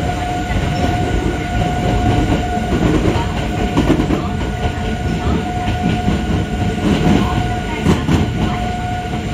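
Hakone Tozan Railway Moha 1 electric railcar running, heard on board: a dense rumble of wheels on rail with a steady high-pitched hum held the whole time and a few sharp clicks about eight seconds in.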